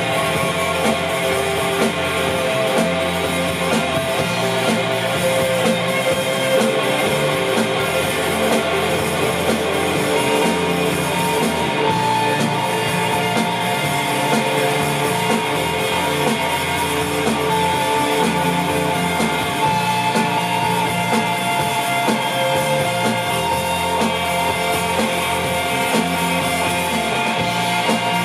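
Live rock band playing an instrumental passage: two electric guitars, one a Telecaster-style and one a red Stratocaster-style, over a drum kit. The music is loud and unbroken, with long held guitar notes.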